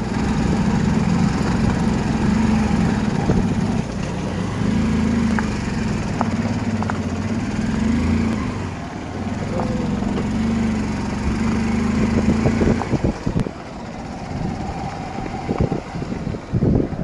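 Small motor scooter engine running along a rough dirt track, its note wavering up and down with the throttle and jolts. About thirteen seconds in the engine note drops away, leaving irregular knocks and wind rumble.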